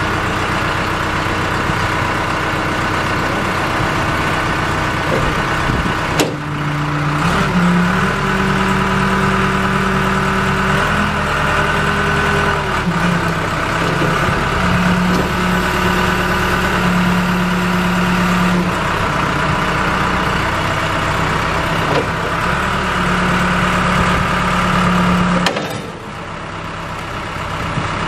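Case skip loader's diesel engine idling just after start-up, then running at raised revs with a whine as the loader hydraulics lift and lower the bucket, cycling hydraulic fluid through the system. The pitch steps up and down several times and drops back near the end.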